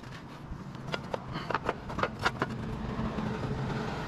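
Several sharp clinks of roof tiles being handled and knocked together, then the steady rumble of a car passing.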